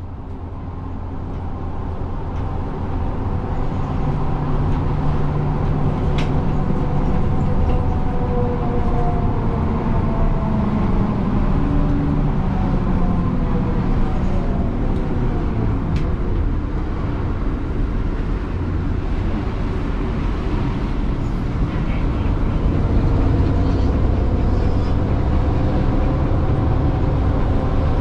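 Interior of an articulated city transit vehicle under way: a steady low running rumble with a faint whine that glides up and down in pitch. Two sharp clicks are heard partway through.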